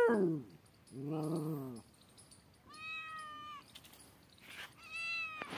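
A tabby cat yowling in a series of drawn-out calls: a low, growly one about a second in, then two higher, steadier ones. A sharp click comes near the end.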